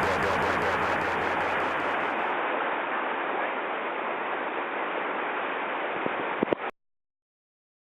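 Steady rushing of water pouring over a river weir, with a fast rhythmic pulsing over it for the first two seconds. The sound cuts off abruptly just before the end, right after a few clicks.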